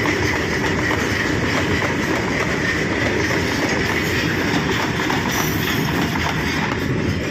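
Freight train wagons rolling past at steady speed, wheels clattering continuously over the rail joints, with a steady high ringing note from the wheels on the rails.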